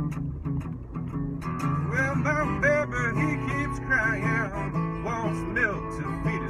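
A man playing a slow blues on acoustic guitar and singing, his voice coming in about a second and a half in.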